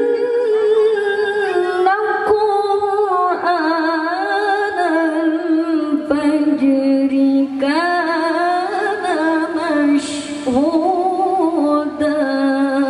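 A woman reciting the Quran in melodic tilawah style into a handheld microphone: long held, ornamented phrases that slide between pitches and waver quickly.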